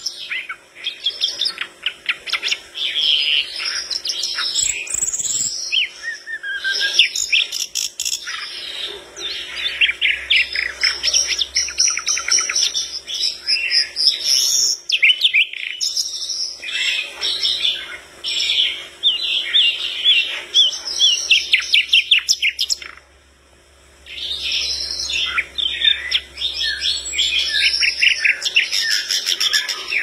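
A sikatan londo (brown-chested jungle flycatcher) singing a long, fast, varied song of chirps and rapid trills, broken by one short pause about three-quarters of the way through.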